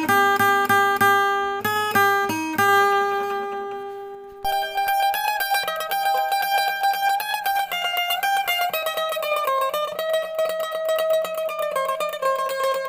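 Background music on a plucked string instrument, like a mandolin or guitar. It plays slow ringing notes, then, about four seconds in, turns to a fast, rapidly repeated picked melody.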